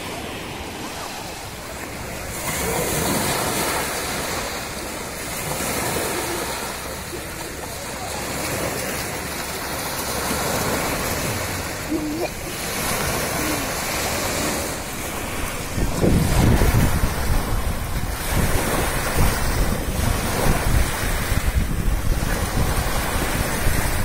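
Small sea waves washing up onto a sandy beach, the surf swelling and easing every few seconds. About two-thirds of the way through, gusty wind starts buffeting the microphone with a low rumble.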